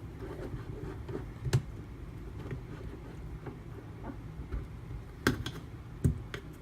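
A few sharp clicks and knocks, about a second and a half in and twice more near the end, as a sharpening stone and knife are handled and set in place, over a low steady hum.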